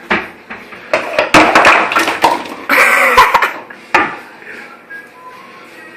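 A run of sharp knocks and clattering, like dishes or a container being handled, from about a second in to about four seconds in.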